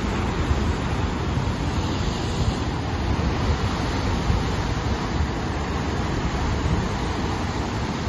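Heavy surf breaking and washing over a rocky shore: a continuous rush of churning water with a low rumble, and wind buffeting the microphone.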